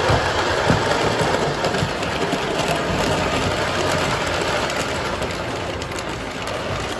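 Three-rail model train running on metal track: the electric motor and the wheels on the rails make a steady whir and clatter as the locomotive and coaches pass close by, easing off slightly near the end.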